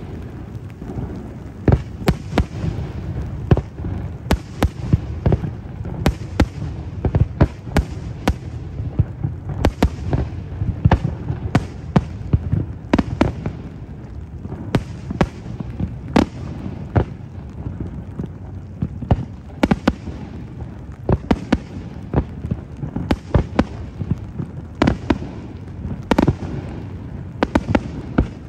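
Fireworks going off: a rapid, irregular run of sharp bangs, several a second, over a continuous low rumble.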